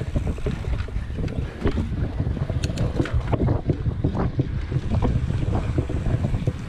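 Mountain bike riding on a dirt singletrack: wind buffeting the microphone as a steady low rumble, with tyre noise on dirt and frequent sharp clicks and rattles from the bike over bumps.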